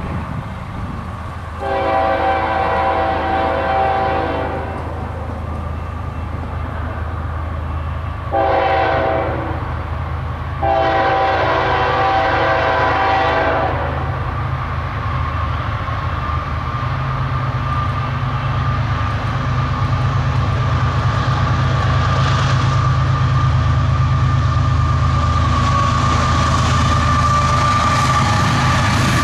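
CN ES44AC diesel locomotive approaching and sounding its multi-note air horn in three blasts, a long one, a shorter one, then another long one. After the horn its low engine rumble and the train's running noise grow steadily louder as it nears.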